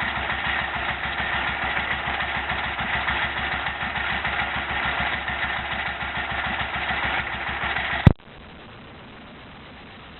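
An engine running steadily with a fast, even pulse. It cuts off abruptly about eight seconds in with one loud click, leaving only a faint steady hiss.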